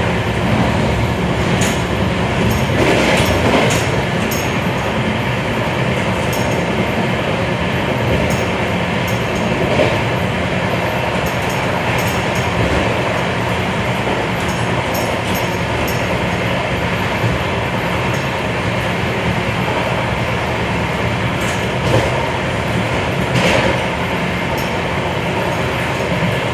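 Steady running noise of a moving passenger train, heard from inside the coach, with occasional short clicks and knocks scattered through it.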